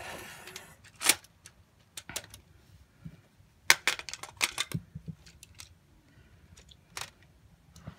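Sharp plastic clicks and taps of LEGO Technic parts as hands handle and fit pieces on a LEGO Technic model car, scattered singly with a quick cluster of clicks near the middle.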